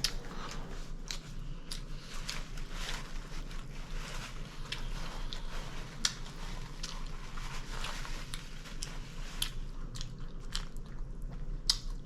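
A person chewing close to the microphone, eating a crispy chicken club sandwich: irregular crunches, wet mouth clicks and smacks.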